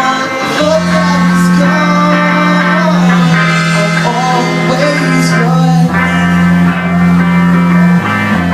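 A rock song with guitar, a steady bass and a singing voice.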